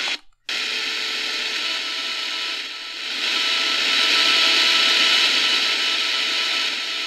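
Shortwave static hissing from a Prunus J-401 portable radio's speaker on an empty frequency, with a faint buzz that comes with adjusting the volume. It cuts out for a moment near the start, then gets louder about three seconds in as the volume is turned up.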